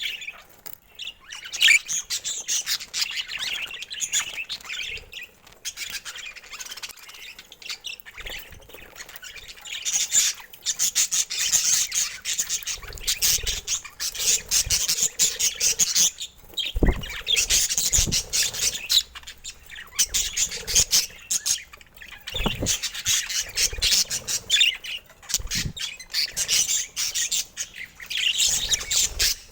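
Budgerigars chattering and squawking in a fast, continuous warble, with a few sharp knocks about halfway through and again later.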